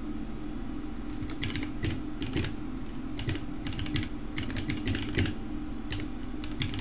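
Computer keyboard typing in quick bursts of keystrokes, starting about a second and a half in and stopping briefly before a last few keys near the end, over a low steady hum.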